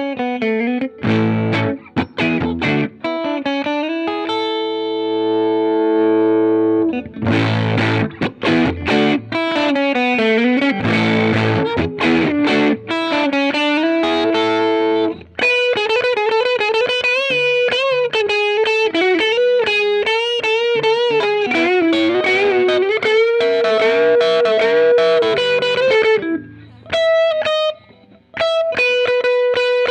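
Electric guitar played through a Ground Control Audio Serpens optical boost/compressor pedal. Chords come first, with one chord left ringing for a few seconds. A single-note lead line with string bends follows.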